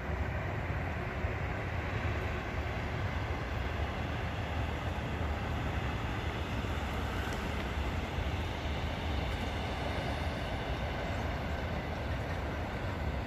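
Steady outdoor background noise: an even low rumble with a hiss over it, unchanging throughout.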